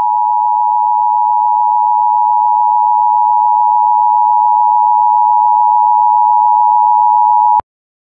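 Emergency Alert System attention signal: two steady tones at 853 and 960 Hz sounding together, loud and unchanging, then cutting off suddenly near the end. It announces that an emergency alert message follows.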